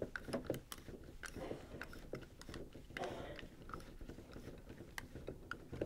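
Hand screwdriver turning screws down into the piston cap drive assembly of a Clack WS2 water softener valve: faint, irregular small clicks.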